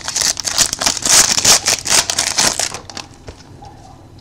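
Foil wrapper of a trading-card pack crinkling as it is opened, with cards rustling, for about the first three seconds, then dying down to a faint rustle.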